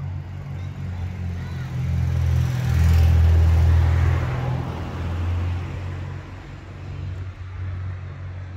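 A car driving past on the street: a low engine rumble and tyre hiss that swell to their loudest about three seconds in, then fade.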